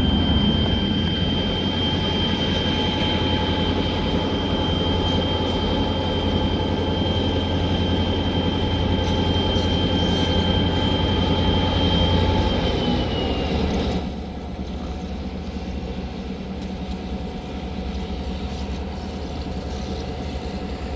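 Heavy, loaded freight train running by: a steady low rumble with a thin, high steady whine over it. The whine glides slightly down and stops about 14 seconds in, where the sound drops to a quieter rumble.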